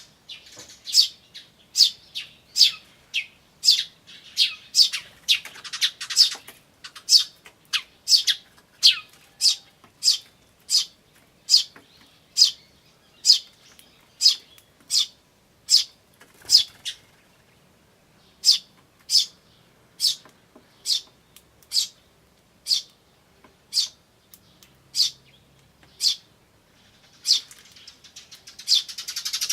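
Eurasian tree sparrows, adults and chicks, calling: a long run of short, sharp chirps at about two a second, with a brief pause partway through. Near the end a faster, continuous chattering call builds up.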